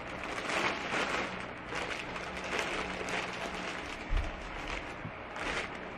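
Plastic packaging rustling and crinkling as it is handled, with a dull thump about four seconds in.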